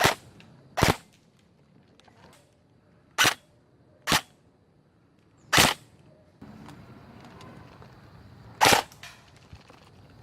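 Airsoft rifle firing six single shots at irregular intervals, each a short, sharp crack.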